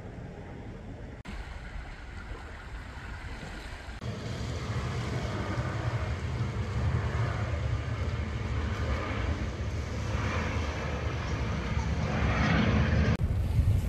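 Shallow sea water washing in over sand between black basalt rocks, with wind rumbling on the microphone; louder from about four seconds in.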